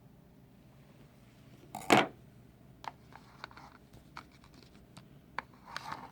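Folding pocket knife being handled: one loud, sharp snap about two seconds in, then scattered light clicks and rustling.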